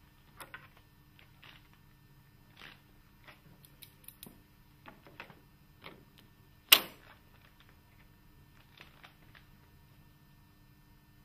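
ROTO NT steel window fittings being handled and slid along a PVC window sash: scattered small clicks and light scrapes, with one loud sharp click about two-thirds of the way through.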